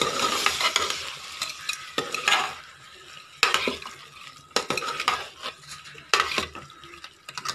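Metal ladle and spatula stirring and scraping a thick prawn-and-potato masala in a metal pot, the mixture sizzling in oil. The sizzle is loudest in the first couple of seconds, followed by separate scraping strokes against the pot.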